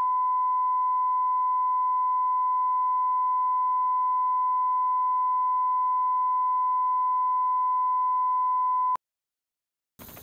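Steady 1 kHz reference tone laid with broadcast colour bars at the head of a videotape. It cuts off abruptly about nine seconds in. After a second of silence, a steady rushing hiss starts near the end.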